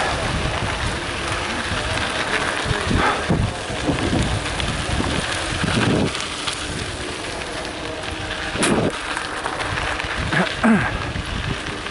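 Wind buffeting the camera microphone on a moving mountain bike, with the tyres crunching over loose gravel and the bike rattling. There are a few brief louder knocks, the sharpest about three-quarters of the way through.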